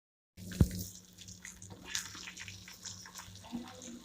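Fried chicken pieces sautéing in hot oil with cashews and curry leaves in a pan, giving a light sizzle with scattered crackles. A sharp knock sounds about half a second in, after a brief moment of silence at the very start.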